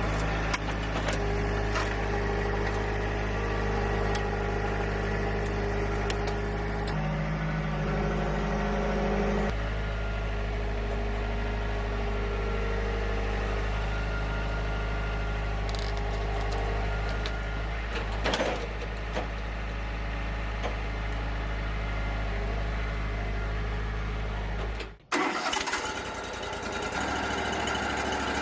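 Wood-Mizer LT35 sawmill engine running steadily, its note shifting briefly in the middle. About 25 seconds in it cuts off abruptly, and a higher, busier machine sound follows.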